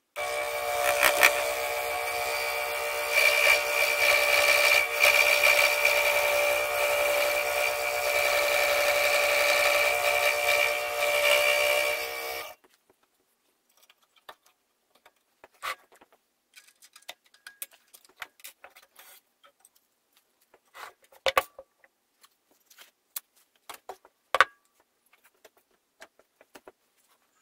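Proxxon scroll saw running and cutting through a wooden board, a steady hum with a high whine that stops suddenly about halfway through. After that, scattered light knocks and clicks as the cut wooden pieces are handled.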